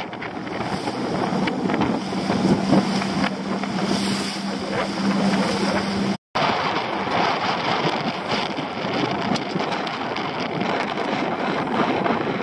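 Small open boat under way on a choppy sea: an outboard motor running with a steady hum, wind buffeting the microphone and water rushing and splashing along the hull. The sound cuts out for an instant about six seconds in.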